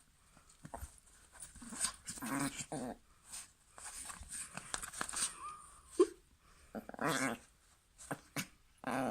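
A dog growling in several short buzzing bouts with a few whiny edges while it keeps hold of a teddy that it is being asked to give up: a play or guarding growl.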